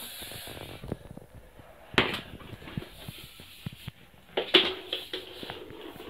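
Heat shrink tubing and cable being handled: faint rustling and light ticks, with a sharp click about two seconds in and a brief cluster of rustling clicks about four and a half seconds in.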